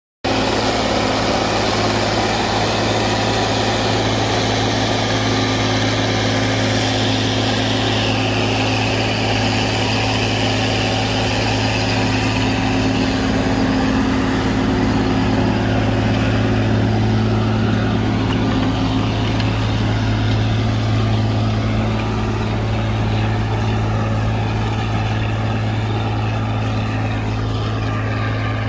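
Oliver 1850 tractor engine running steadily under heavy load, pulling a moldboard plow through old sod.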